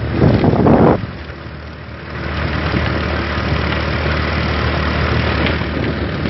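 A motor vehicle's engine running steadily with road and wind noise. It is louder in the first second, then settles into an even drone.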